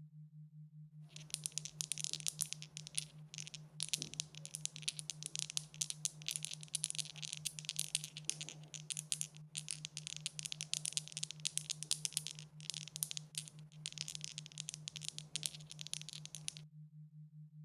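Dice rattling: a dense, fast run of small hard clicks. It starts about a second in, lasts about fifteen seconds and stops near the end.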